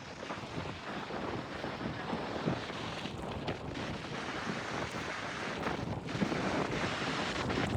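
Sea waves washing in as a steady, uneven rush of surf, with wind buffeting the microphone.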